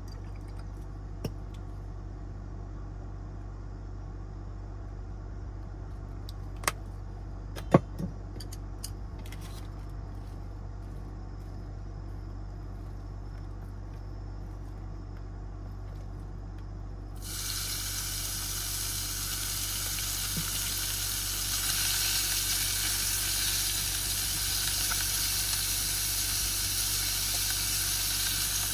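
Thin-sliced meat sizzling in a hot electric pot, the hiss starting suddenly about seventeen seconds in and staying steady. Before that, a low steady hum with a few sharp clicks, the loudest about eight seconds in.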